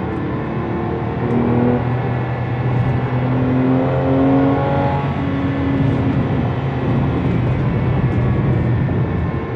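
Porsche 997.1 Carrera S's 3.8-litre flat-six engine heard from inside the cabin, running under load with its pitch rising and falling, over tyre and road noise.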